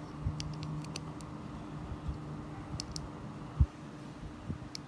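Scattered light clicks and handling noises from a small Ledger Nano S hardware wallet being held in the hand, with one low thump about three and a half seconds in, over a steady low hum.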